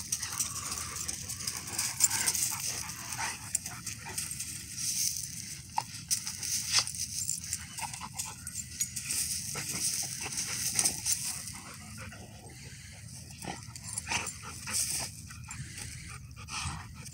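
Two dogs play-fighting on loose gravel: dog vocal noises mixed with scuffling, in short, irregular bursts.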